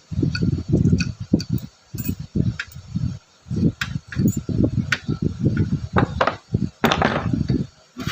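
Small metal parts being handled on a workbench: scattered light clinks and knocks over a run of low, muffled handling thumps.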